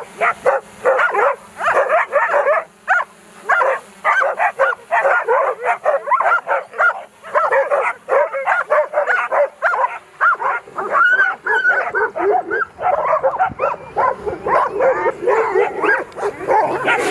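A pack of stray dogs barking and yelping without a break, many barks overlapping, excited by a drone hovering low overhead.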